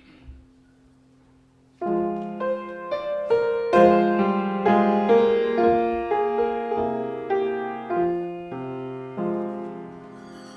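After a quiet start, a piano begins playing about two seconds in: a run of struck notes and chords, each ringing and fading.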